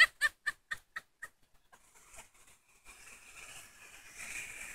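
A quick run of short chirping calls, about four a second, fading away within the first second or so. Then, from about three seconds in, a steady whine and hiss that slowly grows: the electric motor and gearbox of a Power Wheels Jeep Wrangler ride-on toy, its plastic wheels running through water on wet pavement.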